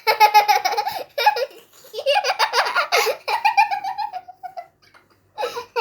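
A young girl giggling and laughing in several bursts of quick, high-pitched pulses, with a pause of about a second near the end.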